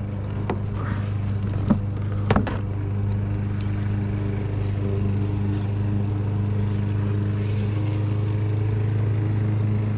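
A steady low mechanical hum made of several fixed tones, unchanging in pitch and level, with a few sharp clicks or knocks in the first two and a half seconds.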